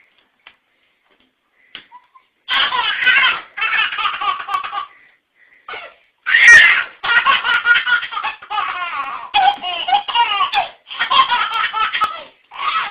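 A baby laughing in long, repeated high-pitched fits that begin about two and a half seconds in.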